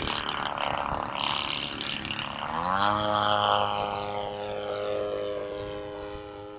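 A radio-controlled Cub-style model plane flying past and climbing away, its propeller drone rising in pitch about two and a half seconds in. The drone then holds steady and dips slightly near the end.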